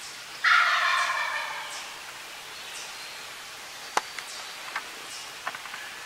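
A wild turkey gobbler gobbling once: a loud rolling gobble about half a second in that lasts about a second and a half and fades away, followed a few seconds later by a few faint ticks.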